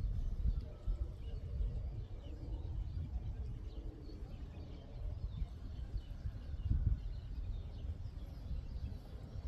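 Gusty wind buffeting the microphone, an uneven low rumble, with faint bird chirps behind it.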